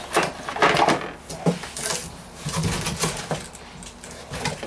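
Cardboard packaging being handled: irregular rustling and scraping with a string of light clicks and knocks as a boxed heating element is moved about in a shipping box.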